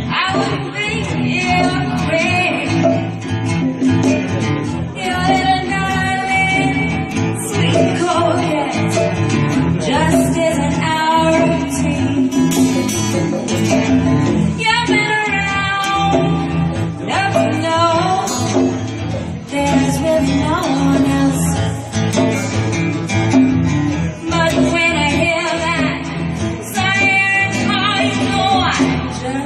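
Live band music with guitar and percussion, playing steadily.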